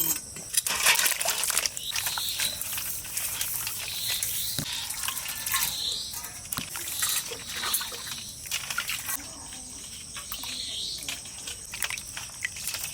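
Hands sloshing and splashing water in a vessel, in irregular short splashes and drips, typical of washing food by hand. Steady insect chirring runs behind it.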